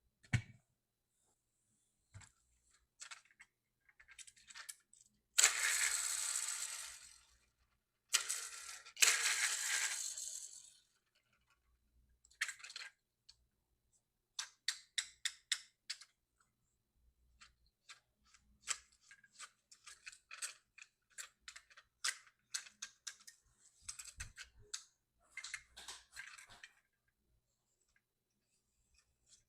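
Small clicks and taps from diecast toy trucks and their packaging being handled. About five seconds in and again about eight seconds in comes a longer scraping, rustling noise, each lasting a couple of seconds and fading out.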